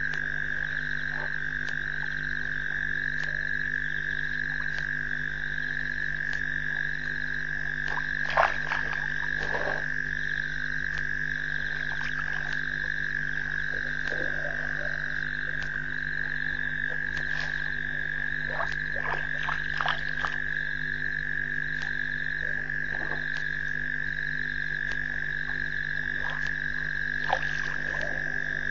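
Frog chorus: a dense, unbroken high-pitched trill, with a second chorus pulsing on and off higher up, over a steady low hum. A few sharp clicks stand out, the loudest about eight seconds in.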